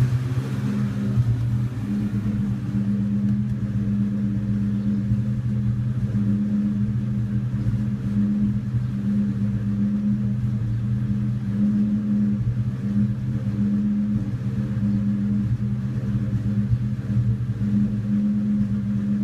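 2002 Ford Mustang GT's 4.6-litre SOHC V8 idling with an uneven, stumbling beat: a misfire at idle that new spark plugs and coil-on-plug units and a cleaned throttle body and MAF sensor have not cured.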